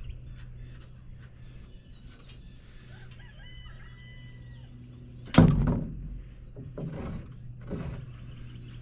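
A rooster crows faintly for about a second. Then comes a single loud thump, followed by two softer knocks over the next couple of seconds, against a steady low hum.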